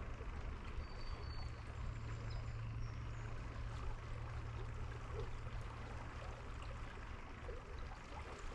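Quiet outdoor ambience: a steady low hum under an even background hiss.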